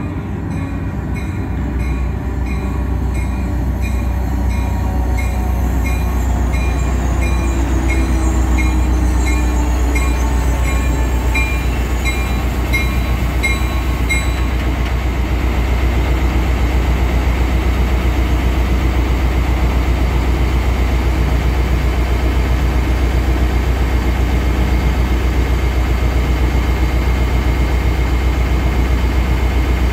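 Caltrain EMD F40PH diesel locomotive pulling into the platform and coming to a stand, its engine running with a steady low rumble. A bell rings in an even rhythm and stops about halfway through.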